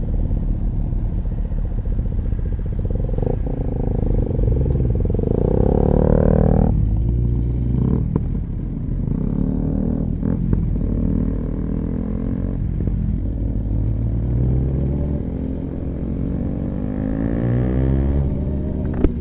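Kawasaki ZX-9R's inline-four engine accelerating on the road, its pitch climbing and then dropping back at each gear change, several times over.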